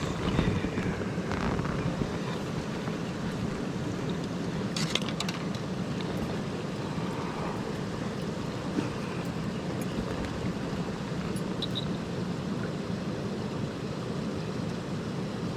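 Mountain stream water rushing steadily, with a few faint clicks and knocks, one about five seconds in.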